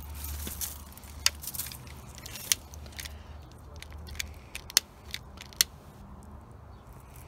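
Dry grass rustling, then sharp irregular pops and cracks from the kindling catching inside a log rocket stove. The material sounds damp: it sounds like quite a lot of water in there.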